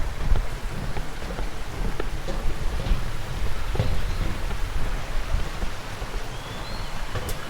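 Steady rush of falling water, a loud, constant splashing noise with no let-up.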